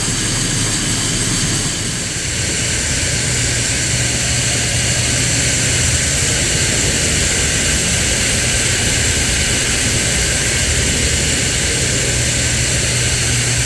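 Farm feed mixer and its auger running steadily with a loud mechanical hum and a high whine, as corn is augered from the bin into the mixing tank with barley and soybeans.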